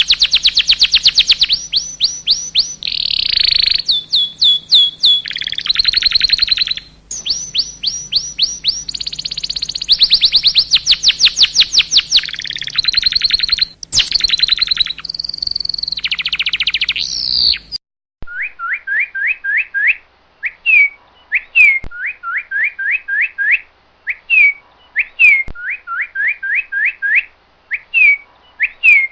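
Songbird singing: rapid trills of high, downward-sweeping notes mixed with harsh, buzzy phrases. About eighteen seconds in it cuts abruptly to another bird's lower song of rising whistled notes in short runs.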